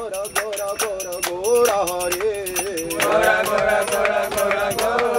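Group of men singing a devotional kirtan chant, a melodic call line, kept in time by a quick steady beat of hand claps.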